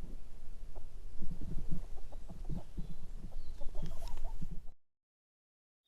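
Chickens clucking in short irregular calls over a low rumble. The sound cuts off abruptly a little before the end.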